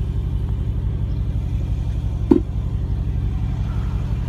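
Steady low vehicle rumble, with one short brief sound about two seconds in.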